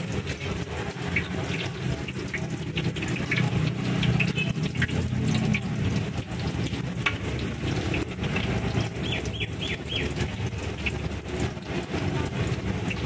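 Battered tofu fritters frying in a wok of hot oil, a continuous sizzle with scattered crackling pops, over a high-pressure gas stove that adds a steady low roar.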